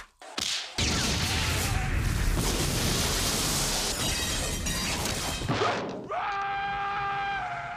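Film action sound effects: a sharp knock, then several seconds of loud crashing noise, then a long held high-pitched wail that dips at the end.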